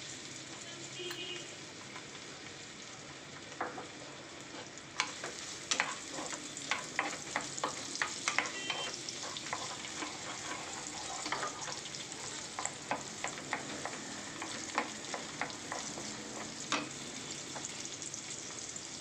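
Chopped shallots sizzling in hot sesame oil in an aluminium pressure cooker, a steady hiss. From about five seconds in, a wooden spatula stirs them, with many short clacks and scrapes against the pan.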